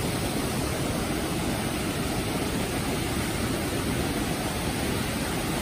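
Rain-swollen stream rushing over rocks in a small cascade, a steady, even noise of running water.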